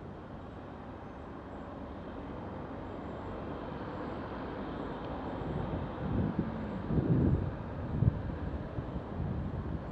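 Wind rushing over the microphone of a camera mounted on a moving bicycle, with passing road traffic. The rush grows steadily louder and turns gusty in the second half, with uneven low buffeting thuds.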